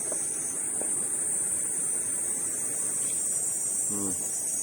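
Steady high-pitched chorus of insects, a constant shrill drone without a break.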